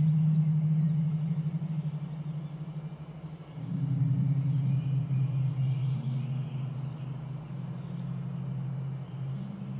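Low synthesizer drone from a Pure Data Automatonism patch: sustained low tones that fade, then change to a new, louder chord about three and a half seconds in, and shift again near the end.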